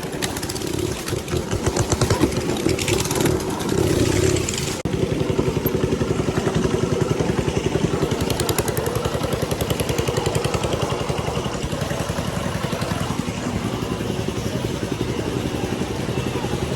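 A small engine running, uneven in loudness for the first few seconds, then running steadily after an abrupt change about five seconds in.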